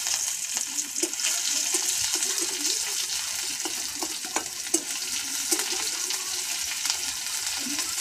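Dried fish frying in hot oil in a steel kadhai over a wood-fired clay stove: a steady sizzle full of small crackles and spatter pops, with a spatula stirring it in the pan.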